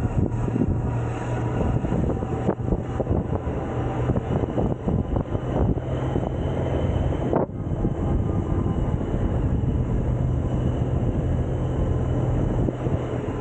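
Suzuki Burgman 650 maxi-scooter's parallel-twin engine running under way, a steady low hum mixed with wind and road noise on the scooter-mounted camera's microphone; the higher noise drops out briefly about halfway through.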